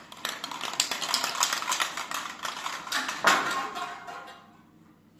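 Rapid, dense clinking and clattering of small hard objects, with a louder clatter about three seconds in, stopping about four seconds in.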